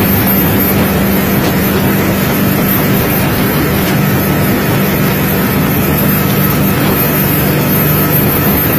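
River speedboat engines running flat out, a loud steady drone over the rush of water from the hulls.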